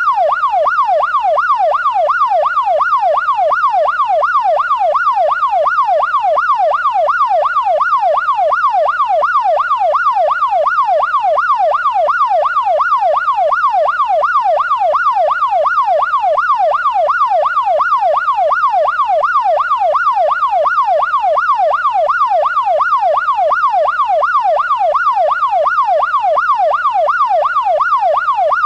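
Police siren in its fast yelp mode, its pitch sweeping quickly up and down in an even, unbroken cycle.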